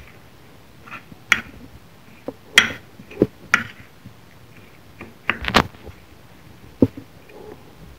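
Metal spoon clinking and scraping against a ceramic bowl while stirring dry ground spices: a series of sharp, irregular clinks, the loudest a little past halfway.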